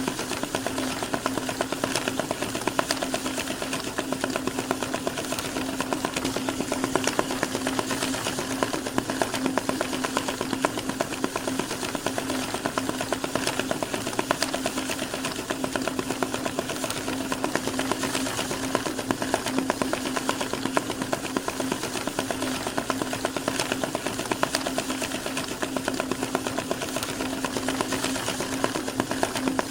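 Banknote counting machine running, feeding bills through in a fast, even stream of ticks over a steady motor hum.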